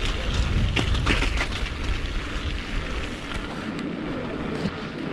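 Wind rumbling on the microphone of a camera riding along on a moving mountain bike, with a few light clicks and rattles. The low rumble eases after about three and a half seconds.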